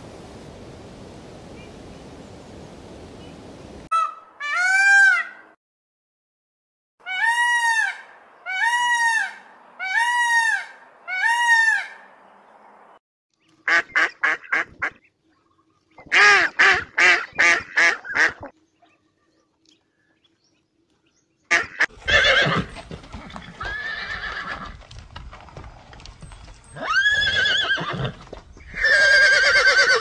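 A run of animal calls: a series of four evenly spaced calls, then ducks quacking in quick runs, then horses neighing and whinnying near the end.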